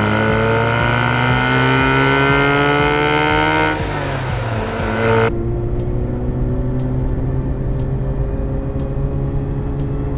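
Mazda RX-8's twin-rotor Renesis rotary engine, running without a catalytic converter, revving up under hard acceleration with a steadily rising pitch, then dropping off about four seconds in. After an abrupt cut a little later, a steadier, quieter low drone with faint ticks about twice a second.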